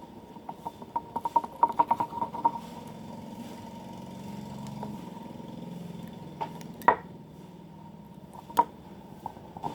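Homemade glue slime being stirred and worked in a container: a quick run of sticky clicks and squelches about a second in, then a few single sharp taps later on, over a faint steady hum.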